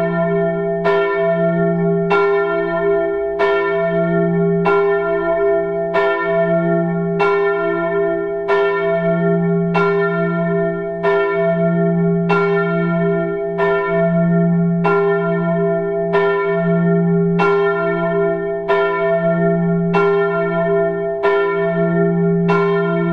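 A church bell tolling at an even pace, about one strike every second and a quarter, each stroke ringing on into the next.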